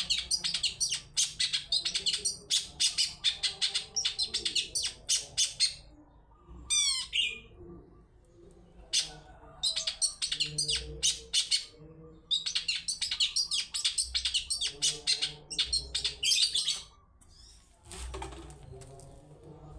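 Long-tailed shrike (cendet) song: fast runs of sharp, high chirping notes, several a second, in bursts broken by short pauses, with a brief series of sweeping notes about seven seconds in.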